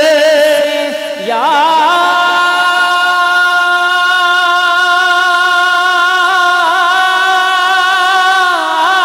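A man's voice singing an Urdu naat: a wavering phrase, then the voice slides up a little after a second in and holds one long, steady note.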